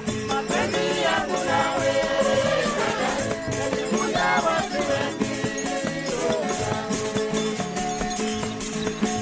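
Background music with a steady beat of shaker-like percussion under a pitched melody.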